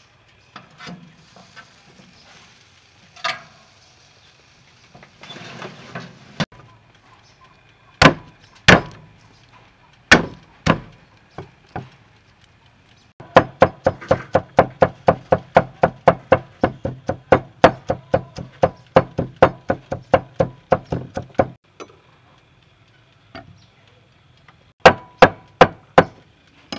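Cleaver chopping on a wooden chopping board, mincing garlic and then herbs: a few separate knocks first, then a fast, even run of chops about four a second for some eight seconds, and a few more chops near the end.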